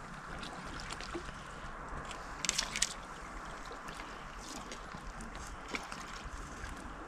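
Steady rush of flowing river water, with a short run of sharp clicks about two and a half seconds in.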